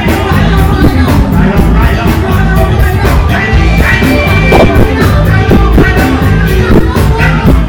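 Live funk band playing loudly with a steady drum beat and bass, with some singing over it.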